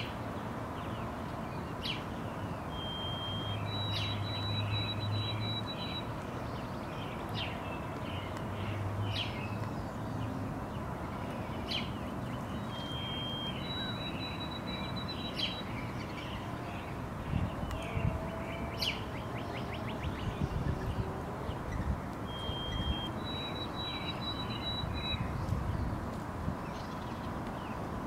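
White-throated sparrow singing: a short clear whistle followed by a longer, slightly higher wavering whistle, repeated three times about ten seconds apart. Underneath is a steady background rumble with scattered short clicks.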